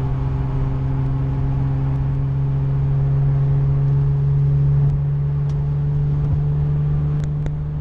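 Acura NSX cruising at steady speed, heard from inside the car: a steady engine and road drone with a low hum that swells slightly about four seconds in.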